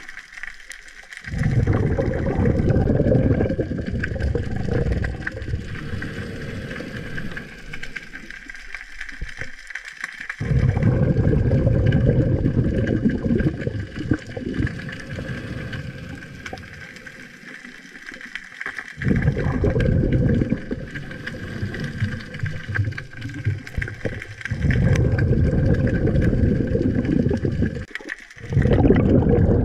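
Underwater water noise: loud, low rumbling bursts a few seconds long, with quieter stretches between, and a faint steady high tone throughout.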